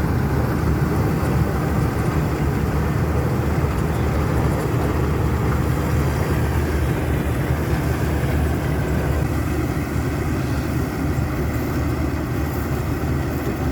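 Engine of a rice harvesting machine running steadily at a constant speed.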